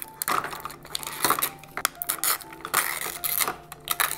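Crinkling and rustling of thin plastic film being peeled off the segments of a 5 Surprise Mini Brands capsule, in short irregular bursts, with light handling of the hard plastic shell, over faint background music.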